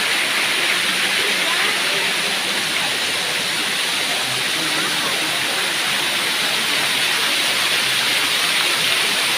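Kanto Lampo Waterfall's water pouring down in a steady, loud rush.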